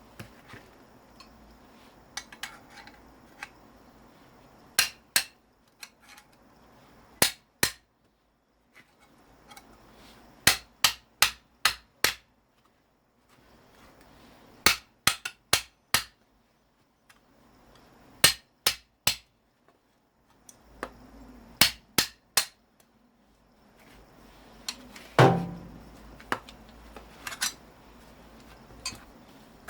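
Hammer blows on a scrap electric motor, struck in quick runs of three to five with pauses between, while its copper windings are being knocked out. One heavier, duller blow lands near the end.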